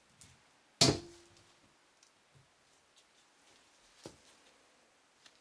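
Wooden soap cutter being worked on a loaf of cold process soap: one sharp clunk about a second in with a short ringing tail, then a softer knock about four seconds in.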